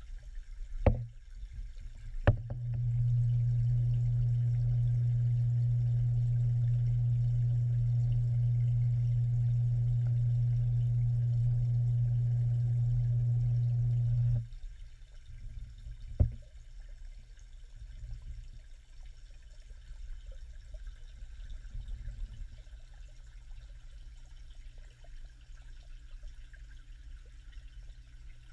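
Muffled sound heard underwater: a steady low hum starts with a knock about two seconds in and cuts off suddenly about halfway through. Two more sharp knocks come just before the hum and one shortly after it stops, over a faint low rumble of water.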